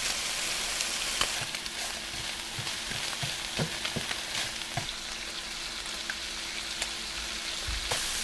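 Crappie fillets sizzling in a hot skillet while a spatula stirs and breaks them up, with scattered scrapes and taps of the spatula against the pan over a steady hiss.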